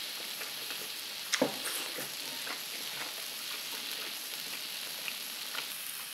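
Food sizzling on a hot cast-iron griddle pan: a steady frying hiss from mushrooms cooking on the pan, with a few light clicks.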